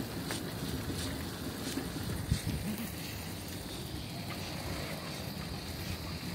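Wind buffeting the microphone while riding a bicycle, with steady tyre rumble on a wet concrete path and one sharp knock about two seconds in.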